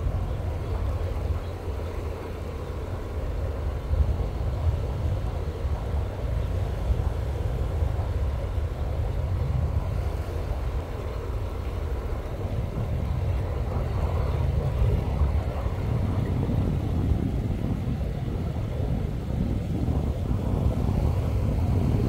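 Wind buffeting the microphone as a steady, flickering low rumble, with a faint outdoor wash above it that thickens in the second half.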